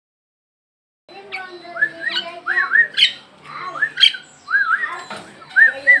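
Lovebird chattering: a rapid run of short, arching chirps mixed with a few sharp squawks, starting about a second in.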